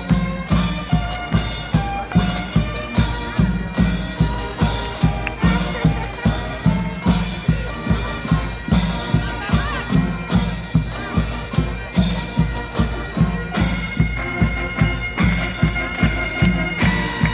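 Military band of bagpipes, brass and drums playing a march. The bass drum beats steadily about twice a second under a held drone and the melody.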